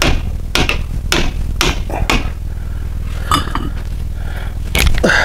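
Hammer blows on a tool, knocking a rusted-in seal out of a Land Rover Defender 90 hub: about six sharp metal knocks at uneven intervals, with a heavy one near the end. The seal is seized by rust and is coming out bit by bit, not in one piece.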